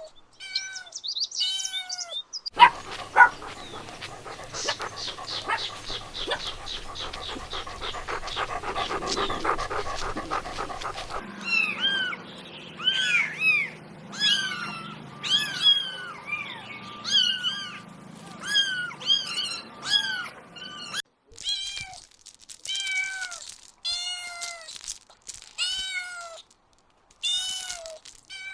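Kittens mewing over and over: short, high-pitched, arching meows about once a second. A few seconds in, a noisier stretch with rapid crackling lasts about eight seconds, and then a faint steady hum sits under the meows for a while.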